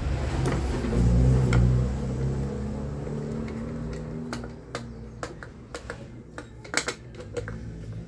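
Small metal clicks and taps as a washer and left-hand-threaded nut are fitted and tightened on an electric fan's motor shaft to hold the blade, with many sharp clicks in the second half. A low rumble fills the first few seconds.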